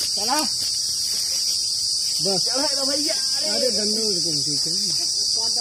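Steady, high-pitched buzzing chorus of insects, with fainter voices in the background.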